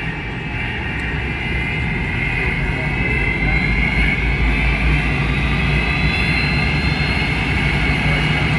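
McDonnell Douglas MD-83's rear-mounted Pratt & Whitney JT8D turbofans heard from inside the cabin while the jet taxis. There is a steady low rumble under a high whine that grows a little louder and higher about three seconds in.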